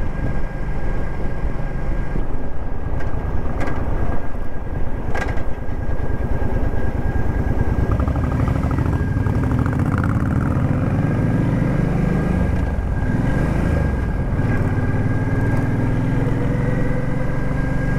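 Suzuki Boulevard C50T's 805 cc V-twin engine running under way on the road, heard from the rider's seat. The engine note climbs in pitch over the last few seconds as the bike accelerates.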